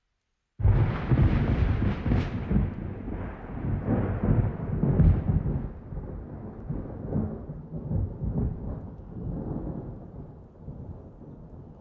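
Thunder: a clap that starts abruptly about half a second in and rolls on as a deep rumble with several swells, slowly dying away.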